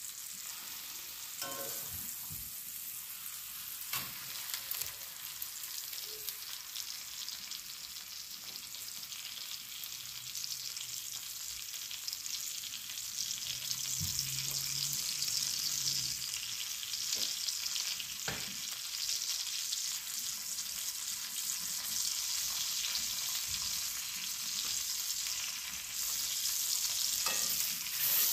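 Steaks frying in melting butter in a cast iron skillet: a steady sizzle that grows louder toward the end. A few light clicks of metal tongs against the pan as the steaks are turned.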